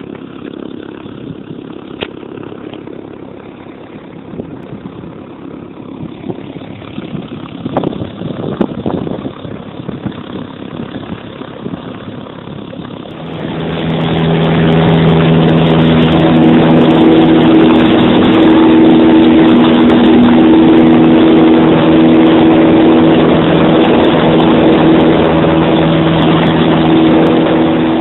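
Rough rumbling noise, then about halfway through a light aircraft's engine comes in loud and drones steadily at a constant pitch.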